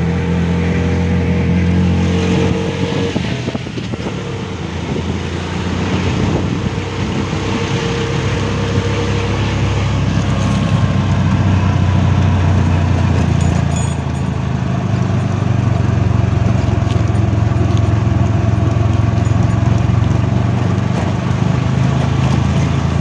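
Auto-rickshaw engine running under way, heard from inside the open cab: a steady low hum with road and wind noise. The sound eases briefly about four seconds in, then holds steady.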